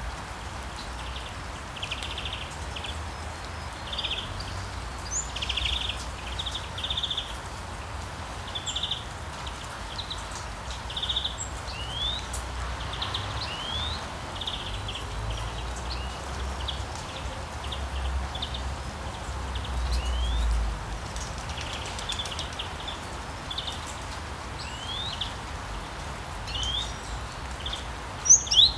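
Songbirds singing and calling: short trilled phrases and quick rising whistles, repeated every second or two, over a steady hiss of rain and a low rumble that swells about two-thirds of the way through.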